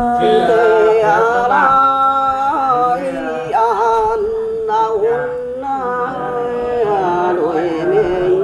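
Mường folk song (hát tiếng Mường): one voice singing a drawn-out phrase of long held notes that bend and waver in pitch, with no clear words.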